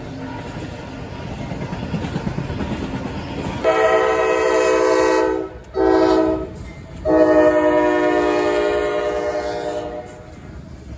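CSX freight locomotive rumbling past, then its air horn sounding three blasts, long, short and long, about four seconds in.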